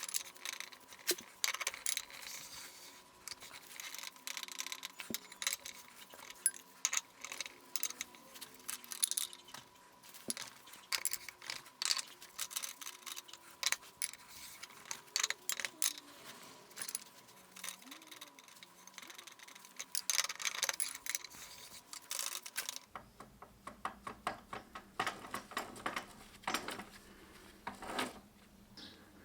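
Metal parts and tools clinking and tapping in an irregular run of sharp clicks and knocks, with some scraping. About two-thirds in, a steady low hum comes in under the clicks.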